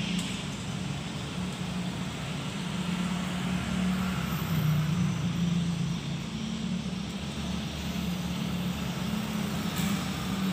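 A motor running steadily with a low, slightly wavering hum.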